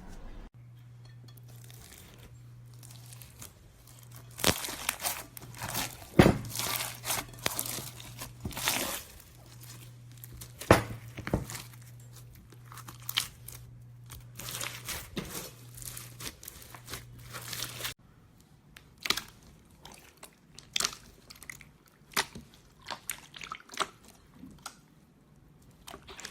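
Slime being squeezed and pressed by hand, making irregular crackling, crunching clicks and squelches. A low steady hum under the first part stops about two-thirds of the way through.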